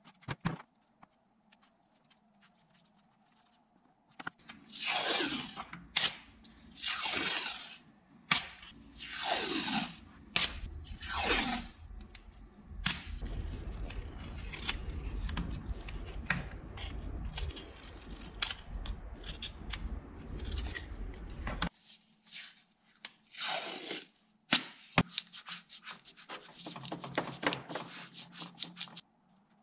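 Blue painter's tape peeled off the roll in several long strips, each pull a screech that falls in pitch, with the tape then rubbed and pressed down around a metal wrench, with scattered small clicks and taps.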